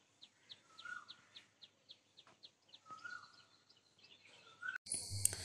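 Faint birdsong: a small bird chirping over and over, about three to four chirps a second, with a few lower whistled notes in between. Near the end the sound cuts abruptly to a steady high-pitched buzz.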